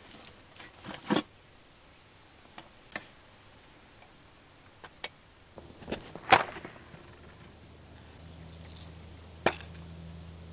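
Camping gear being handled: scattered metallic clinks and clicks of cookware and kit being moved and set down, with one louder knock about six seconds in and another sharp click near the end.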